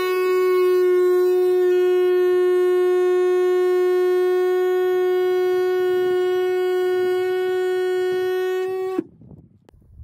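Cordless oscillating multi-tool sawing into the wall of an old gas tank: a loud, steady buzz at a single pitch that cuts off abruptly about nine seconds in.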